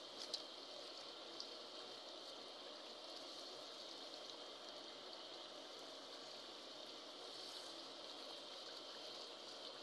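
Chicken and spice masala frying in oil in an aluminium karahi: a faint, steady sizzling and bubbling as a wooden spoon stirs it, with two light knocks of the spoon against the pan in the first second and a half.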